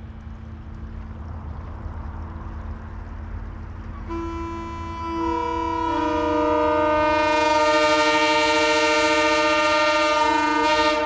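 Three-chime Nathan Airchime locomotive horn built from a mismatched 1L, 1 and 3 bell combination, blown in one long blast. After a low rumble, one note comes in about four seconds in and the other bells join a second or two later, giving a sour chord that, to the owner's ear, does not sound good.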